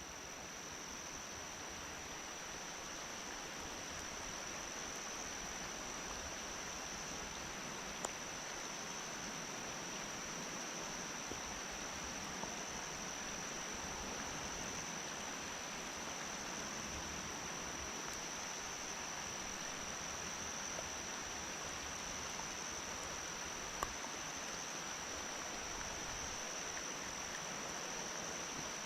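Steady hiss of heavy rain falling, with a thin steady high-pitched tone above it and a couple of faint ticks.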